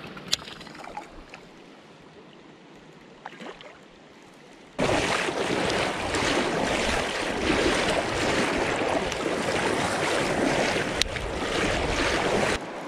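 Rushing noise of fast creek water with wind buffeting the microphone. It starts suddenly, much louder, about five seconds in and cuts off abruptly near the end. Before it there is a quieter, steady flowing-water hiss with a couple of faint clicks.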